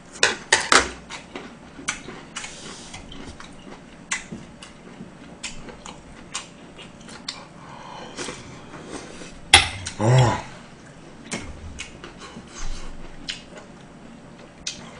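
Metal spoon clinking and scraping against a heavy soup bowl while eating gomtang, in scattered clicks with a louder cluster near the start and another about nine and a half seconds in. A short voiced sound from the eater comes just after, about ten seconds in, between sips of hot broth from the spoon.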